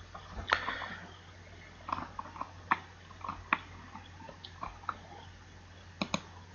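Scattered sharp clicks of a computer mouse being clicked and scrolled, with a quick double click near the end, over a low steady hum.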